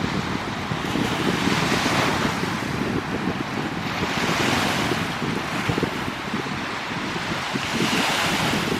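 Lake Superior waves washing onto the shore, the surf swelling and falling every two to three seconds, with wind buffeting the microphone in a low rumble.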